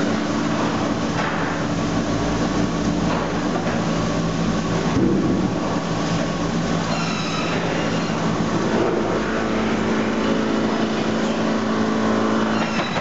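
Sawmill log-infeed conveyor running, carrying a log along with a steady mechanical hum and a few knocks in the first seconds.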